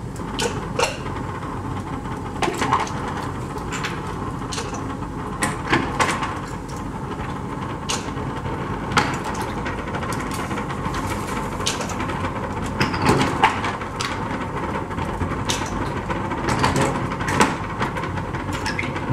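Cashews dry-roasting in a frying pan, worked on the stove so that the nuts and pan give irregular clicks and knocks over a steady background hiss.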